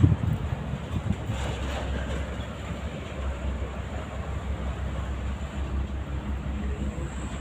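Wind rumbling on the microphone: a steady, flickering low rumble under a faint hiss.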